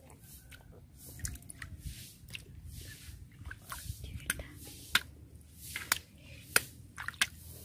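Hand squelching and digging into soft wet mud and shallow water, with irregular wet clicks and drips.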